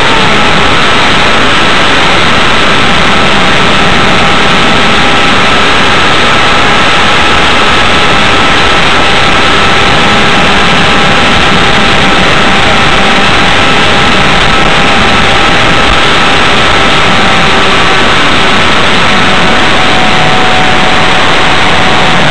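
Wind roaring over the onboard camera microphone of an Electrifly Rifle electric RC plane in flight, loud and even, with the whine of its Turnigy brushless motor and 4.75x4.75 propeller heard as faint steady tones that drift slightly in pitch.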